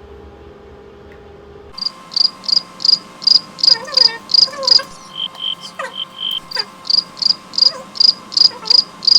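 Crickets chirping in a steady, even pulse of about two to three high chirps a second. They start abruptly about two seconds in, over a sudden change of background, the kind of cut that marks a "crickets" sound effect laid in for an awkward silence.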